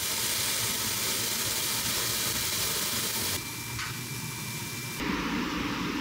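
Vegetables sizzling in a griddle pan on a gas stove: a steady hiss that drops in level about three and a half seconds in.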